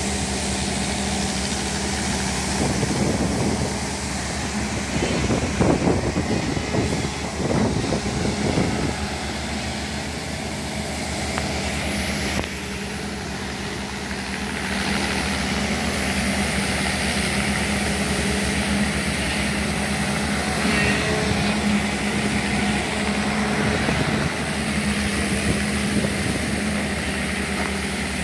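Heavy engines running steadily with a constant low hum, over the rushing and splashing of water gushing from sand-pump outlets.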